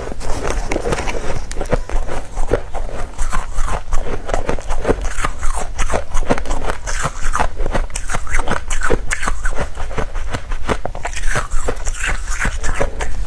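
Close-miked chewing and crunching of powdery freezer-frost ice: a dense, continuous run of small crisp crackles.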